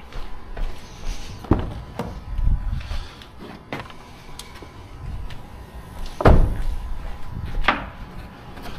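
A handful of knocks and clicks from car parts being handled during installation work, with the heaviest thump about six seconds in.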